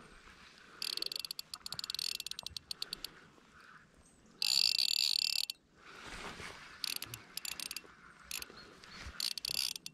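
Fly reel's click-and-pawl drag ratcheting in bursts as a hooked trout is played: a run of fast clicks, then a second-long buzz as line runs off quickly, then shorter bursts of clicks.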